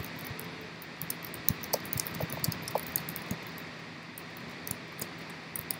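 Computer keyboard keys being typed, irregular clicks that come thickest from about one to three and a half seconds in, with a few more near the end, over a steady hiss.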